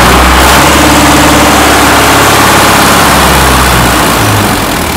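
Sonalika DI-60 tractor's diesel engine running loud and steady under load as the tractor strains against bricks chocked in front of its tyres. About four seconds in, the engine note drops and starts to fade as the engine lugs down toward a stall.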